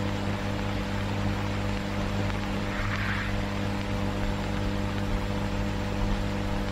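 Steady electrical hum with hiss, the background noise of an old film soundtrack, with one faint brief sound about three seconds in.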